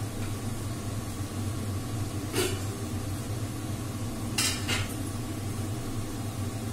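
Stainless steel pots and utensils clinking as they are handled on a kitchen counter: one clink about two and a half seconds in and two more close together past four seconds, over a steady low machine hum.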